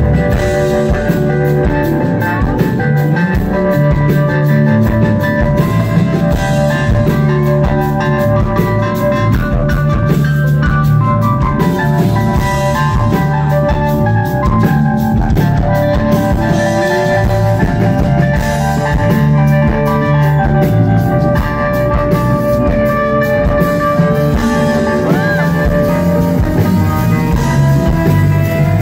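Rock band playing live: electric guitar, organ and drum kit in an instrumental passage, with held organ chords and steady cymbal strikes throughout.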